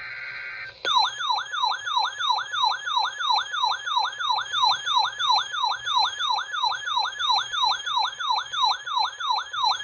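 The end of an Emergency Alert System SAME data-header burst, a short two-pitch data screech. Less than a second in, an alert tone starts: a siren-like tone that falls in pitch, repeating about three times a second, announcing the warning that follows.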